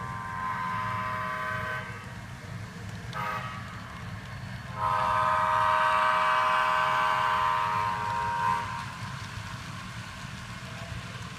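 HO scale diesel locomotive's onboard sound sounding a multi-chime air horn: a blast of about two seconds, a brief toot, then a longer blast of about four seconds. A steady low diesel engine rumble runs underneath.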